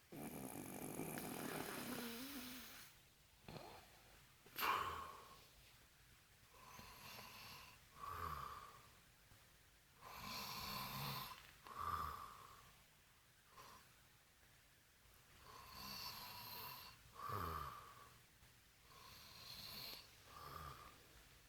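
A drunk man snoring in his sleep, one snore on each breath about every four seconds, with a sudden louder catch about five seconds in.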